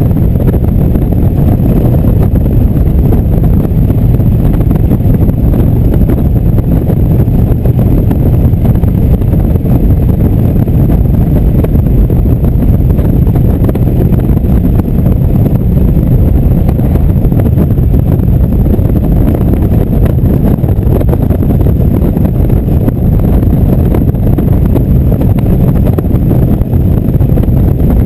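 Indian cruiser's V-twin engine running at a steady cruising speed, mixed with wind rushing over the microphone. The sound holds even, with no revving or gear changes.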